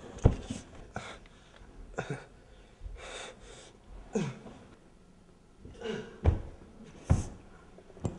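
Live fight sound without added effects: fighters breathing hard and grunting, one grunt falling in pitch about four seconds in, among several sharp thuds and scuffs of blows and footwork.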